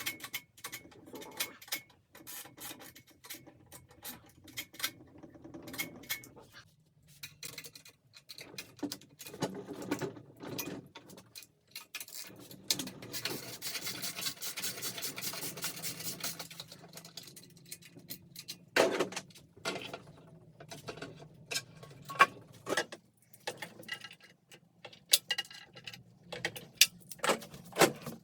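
Hand-tool work on metal engine and bike parts: scattered clicks, clinks and knocks, with a stretch of rapid, even ticking about halfway through and a few sharper knocks later on.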